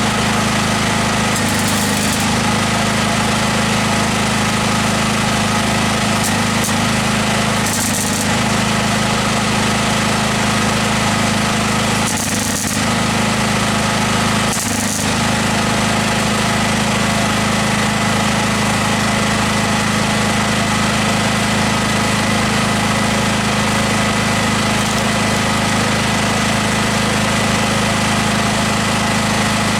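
A loud, steady machine noise runs without a break, with a few brief changes in its texture.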